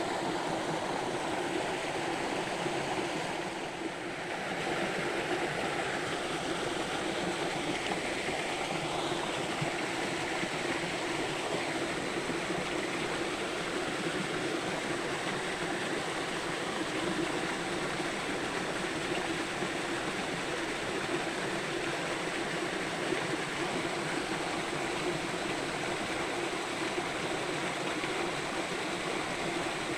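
Stream water rushing steadily, an even wash of noise that dips briefly about four seconds in.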